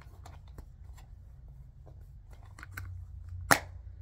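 Plastic DVD case being handled: a scatter of small clicks and taps, then one sharp, louder snap about three and a half seconds in as the case is shut.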